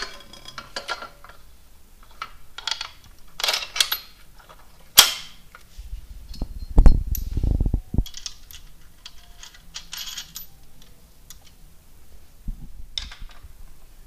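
Steel stand parts being handled as an M14 bolt is pushed through the bracket and a nut is fitted: a string of sharp metallic clicks and clinks. The loudest moment is a low knocking rumble about six to eight seconds in, as the heavy steel sections bump together.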